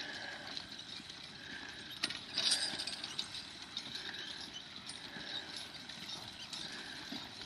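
A draft team of mules or horses walking with a plow, hooves and harness sounding in an even walking rhythm. There is a louder sharp clatter about two seconds in.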